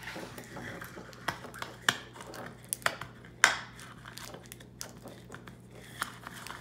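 Crinkling and rustling as the butterfly habitat's mesh and plastic are handled right against the phone, broken by a few sharp clicks, the loudest about three and a half seconds in.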